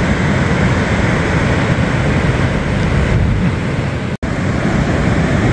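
Steady wind buffeting the microphone over the wash of breaking surf, with an instant's gap in the sound about four seconds in.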